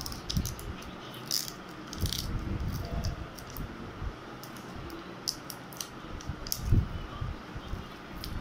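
Small scattered clicks and scrapes of a metal pick prying at the cover on the end of a smartphone battery, with handling rustle and one louder knock about two-thirds through.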